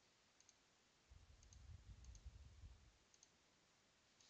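Faint computer mouse clicks, each a quick double tick, about five times, with a low rumble in the middle.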